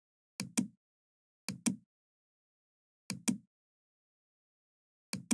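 Computer mouse button clicking: four pairs of short, sharp clicks at uneven intervals, with silence between them.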